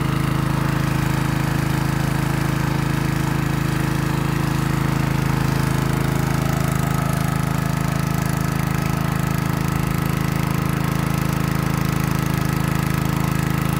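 Honda WB30XD water pump's single-cylinder four-stroke petrol engine running steadily at a constant speed, under load as it pumps water out of a flooded rice field through its discharge hose.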